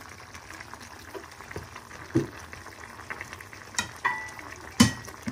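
Pieces of hen sizzling in a frying pan, with a wooden spatula stirring and knocking against the pan three times, the loudest knock near the end. A short high tone sounds about four seconds in.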